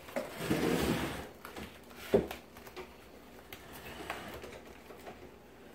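Handling and footstep noise on a vinyl kitchen floor: a brief rustling shuffle near the start, one sharp click about two seconds in, then scattered light taps.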